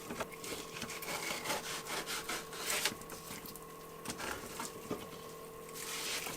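Fillet knife sawing and scraping along a walleye fillet as the skin is cut away, a run of irregular rasping strokes.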